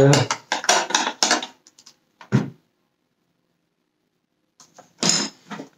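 Hard plastic parts of a Dyson canister vacuum clicking and knocking as they are handled and fitted together: a quick run of clicks, a single duller knock a little past two seconds, then about two seconds of quiet before more clicks near the end.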